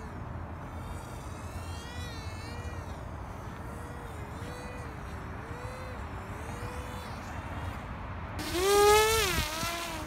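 The small electric brushless motor and propeller of an RC paramotor buzzing in flight, its pitch wavering up and down. About eight and a half seconds in it comes close and grows much louder, its pitch rising and then falling away.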